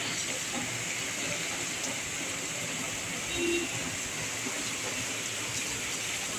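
Heavy rain falling steadily, an even hiss of water, with a brief faint tonal sound about halfway through.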